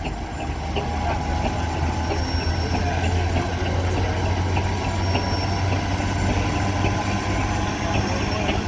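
Steam engine driving belt-powered farm machinery, running steadily: a low, even hum with faint ticks over it.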